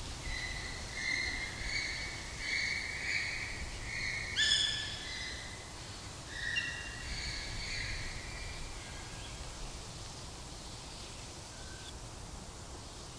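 A series of high, clear animal calls, each held for about half a second on a steady pitch. One rising call about four and a half seconds in is the loudest. The calls stop after about nine seconds.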